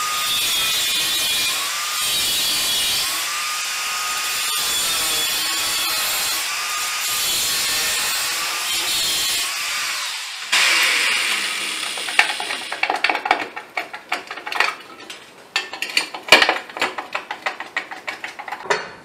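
Handheld electric power tool cutting a notch into the edge of a steel fender, its motor pitch dipping and recovering again and again as it bites into the metal, for about ten seconds. It then stops, and a run of sharp metallic knocks and scrapes follows as the cut notch is worked by hand.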